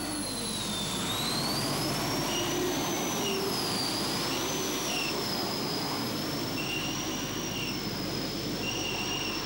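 A three-turbine pulling tractor running flat out under load as it drags the sled: a steady rush of turbine noise with a high whine that rises over the first couple of seconds, then wavers up and down.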